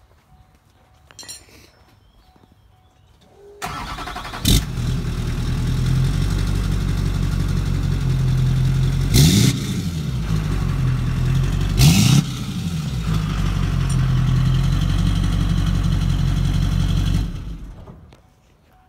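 2003 Chevrolet Silverado's LB7 Duramax 6.6-litre V8 turbodiesel starting about four seconds in and idling through a newly installed axle-dump exhaust, with two quick revs that each rise and fall in pitch and blow black smoke, then shutting off near the end. The exhaust sound is deep.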